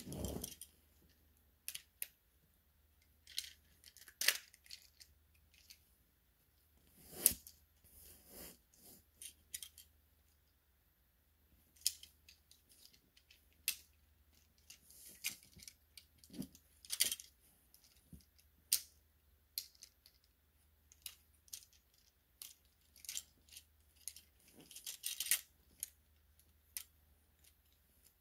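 Hard plastic parts of Transformers action figures clicking and clacking as they are handled and their joints and pieces are moved. Irregular scattered clicks, with a few sharper snaps.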